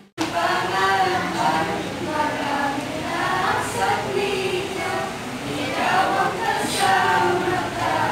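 A group of teenage voices singing an OPM song together, starting just after a brief dropout at the very beginning.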